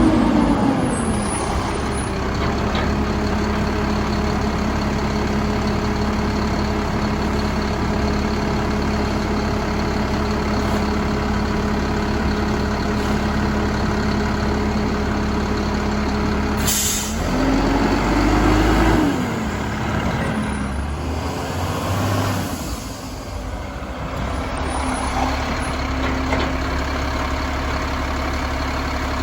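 Mack LEU garbage truck running with a steady drone. About two-thirds of the way through there is a short, sharp air hiss from the air brakes, followed by the engine rising and falling in pitch for a couple of seconds before it settles back.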